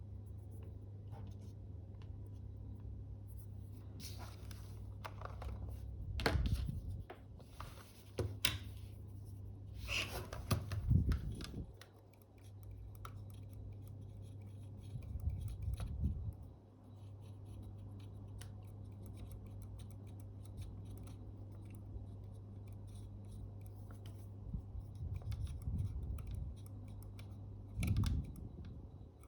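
Small metal hand tools clicking, tapping and scraping in close work on a Fuji GA645 medium-format camera, in irregular bursts over a steady low hum.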